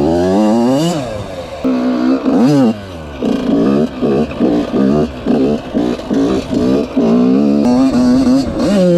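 Rebuilt Yamaha YZ85 two-stroke dirt bike engine revving, its pitch rising and falling sharply again and again. Through the middle come quick blips of the throttle, about two a second, and near the end it holds a steadier pitch for a moment.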